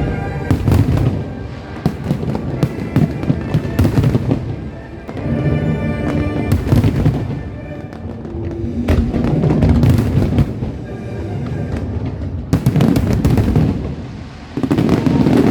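Fireworks bursting and crackling in rapid, irregular volleys over background music, with the thickest cluster of bangs near the end.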